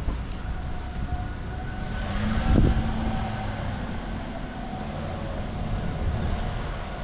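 Steady street traffic rumble, with a vehicle passing close that is loudest about two and a half seconds in.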